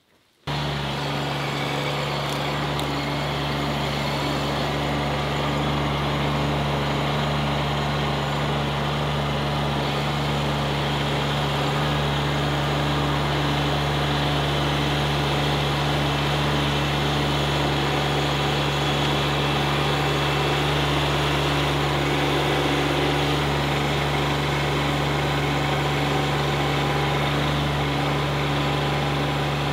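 Kubota B2601 compact tractor's three-cylinder diesel engine running at a steady, unchanging speed, coming in suddenly about half a second in.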